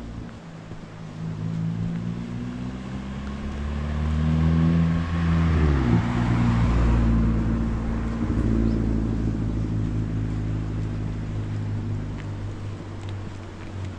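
A motor vehicle drives past. Its engine grows louder, drops in pitch as it passes about six seconds in, then fades away.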